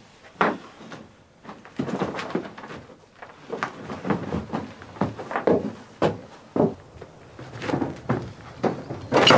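A steel wheelbarrow loaded with soil rattling and knocking as it is pushed over rough dirt ground, with footsteps. Irregular clunks come one or two a second, and a louder clatter comes near the end.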